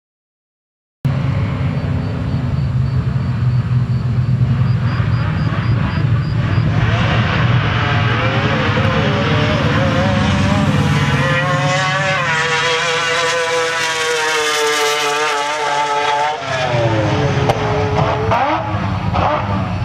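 Naturally aspirated three-rotor Mazda 20B peripheral-port rotary engine in a Mazda RX3 making a drag run. After a low rumble, its high-pitched wail climbs from about seven seconds in and holds near full revs. It drops away sharply about sixteen seconds in as the car comes off the throttle at the end of a 9.39-second pass.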